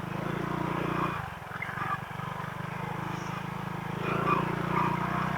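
Honda PCX160 scooter's single-cylinder engine running steadily under way, easing off briefly about a second in.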